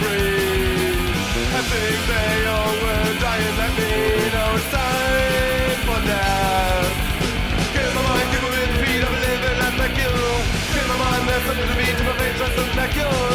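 A rock band playing a punk rock song, with a melodic lead line over drums and guitars and no sung words.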